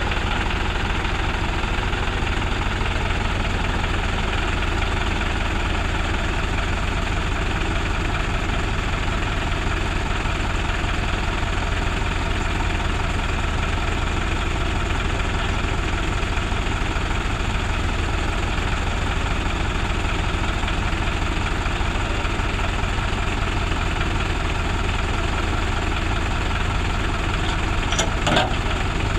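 Mahindra 575 DI tractor's four-cylinder diesel engine idling steadily at close range. A few short sharp clicks near the end.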